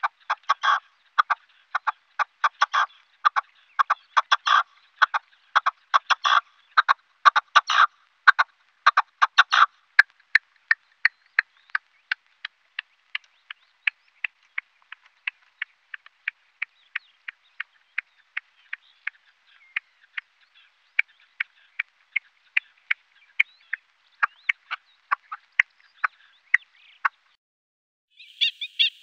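Animal calls made of sharp clicks, in tight rapid clusters for about the first ten seconds, then single clicks a few times a second, stopping shortly before the end.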